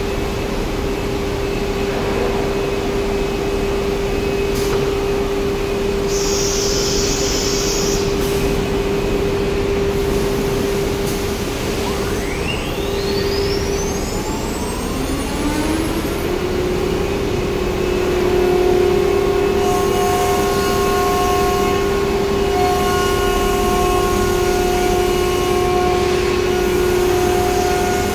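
CNC router spindle spinning up with a steeply rising whine about twelve seconds in, then running steadily as the head works over the board, over a constant machine hum; a short burst of hiss comes about six seconds in.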